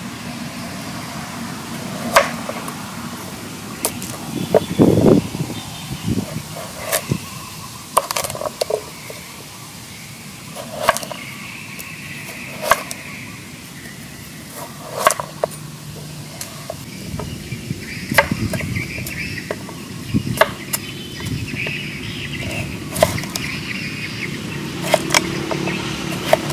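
A cleaver-style kitchen knife cutting through carrot and cucumber onto a wooden cutting board: sharp knocks every second or two, with a quick run of heavier chops about five seconds in.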